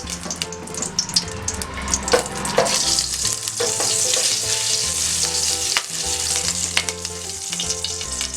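Ghee sizzling in a hot pot on the stove, the hiss growing stronger about three seconds in, with a few sharp clicks of a utensil against the pot.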